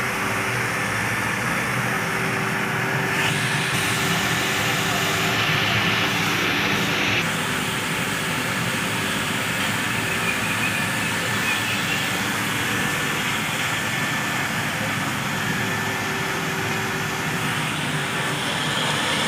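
A 1000 LPH fully automatic reverse-osmosis water plant running: a steady machine hum with constant low tones under a hiss of running water and pump noise. The hiss turns brighter from about 3 to 7 seconds in, then drops back.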